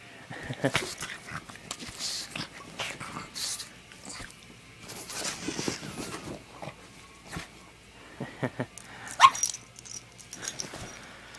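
Excited pug playing: a run of short, irregular dog noises, with one louder sharp sound about nine seconds in.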